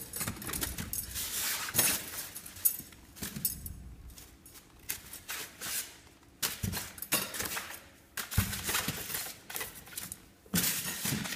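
A collapsible fabric lampshade being handled and folded flat: the cloth rustles, with irregular light clicks and knocks from its metal frame and ribs.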